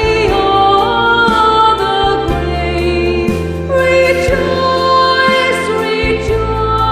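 Slow sung music: voices holding long notes over steady instrumental accompaniment with a sustained bass.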